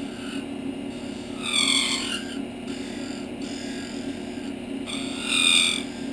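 Small wood lathe running with a steady hum while a hand-held turning tool cuts the thin spinning wood, with two louder cutting passes about a second and a half in and again near the end. The tool is chattering against the flexing, vibrating workpiece, which leaves ridges in the cut.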